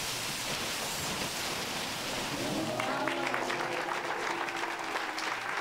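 A crowd applauding, with voices calling out over the clapping from about halfway through.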